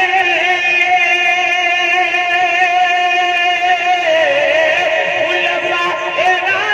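A man singing a naat into a microphone, drawing out one long, wavering note without words; the pitch dips and turns about four seconds in.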